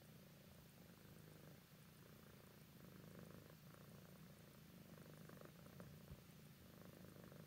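Adult tabby cat purring softly and steadily while being stroked, the low purr rising and falling with each breath.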